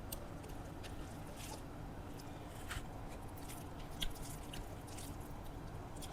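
Close-up mouth sounds of someone chewing a meal of rice and fried vegetables: scattered soft wet clicks and smacks over a low steady hum, the sharpest about four seconds in.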